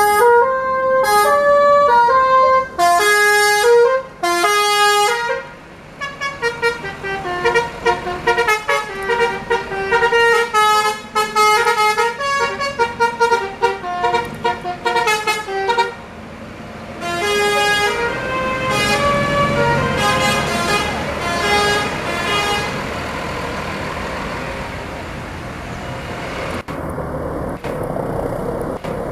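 A tour bus's multi-tone telolet horn playing a tune: a few long notes, then a run of quick short notes, then slower notes that die away about two-thirds through, leaving only steady background noise.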